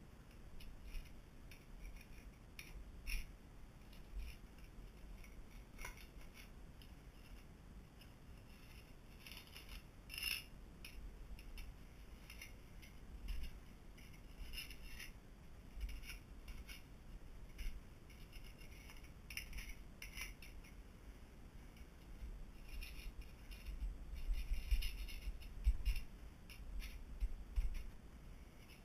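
Irregular short scraping strokes of a small hand scraper on porcelain mosaic floor tiles, clearing off leftover mortar residue. There are a few louder knocks and a denser run of scraping near the end.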